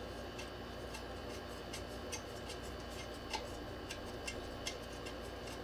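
Small, light metal clicks, two or three a second at an uneven pace, as the gumball machine's metal cap and long metal rod are turned and fitted together by hand; one click a little over halfway through is louder.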